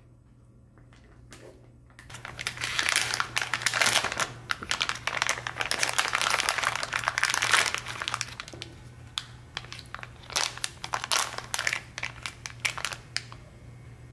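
Crinkly plastic packaging pouch being handled and opened, with a small camera hot-shoe mount adapter pulled out of it. The crinkling starts about two seconds in and is dense for several seconds, then thins to scattered crackles near the end.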